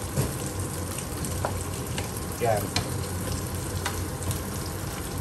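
Spinach sizzling in a hot frying pan with a steady sizzle and a few sharp ticks, then stirred with a wooden spatula.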